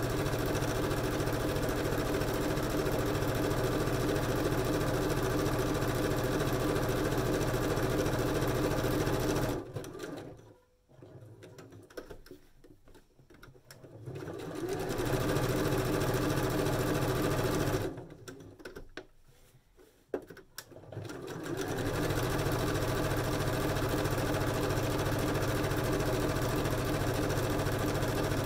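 Janome domestic sewing machine running steadily, basting through a fabric panel and batting. It stops twice for a few seconds, about ten seconds in and again around eighteen seconds, then runs on.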